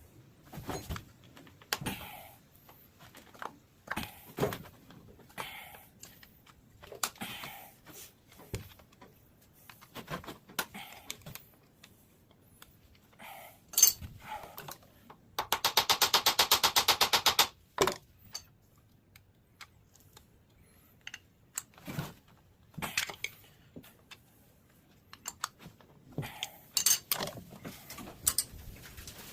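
Metal lathe parts and hand tools clinking, tapping and knocking at irregular intervals as shift levers and detents come off the headstock of a Monarch 18CBB lathe. About halfway through comes a fast, even run of clicks lasting about two seconds, the loudest sound.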